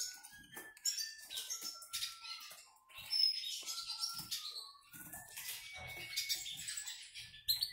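Caged songbirds chirping and twittering: many short high calls mixed with a few held whistled notes.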